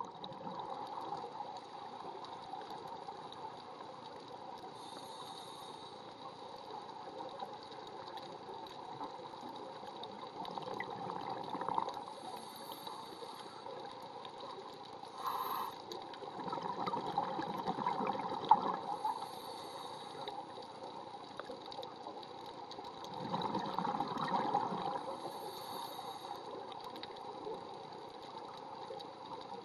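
Scuba diver's regulator breathing heard underwater: slow breaths, with a louder bubbling exhale every six seconds or so and short hisses in between, over a steady watery background.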